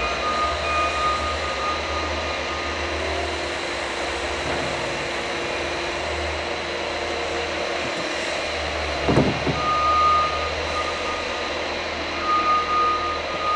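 Steady machinery noise with a constant hum, and a high beeping tone that comes and goes in short pulses in the second half.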